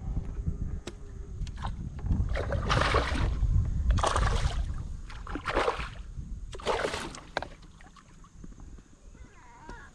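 Kayak paddle strokes: four separate swishes of water about a second and a half apart, over a low rumble.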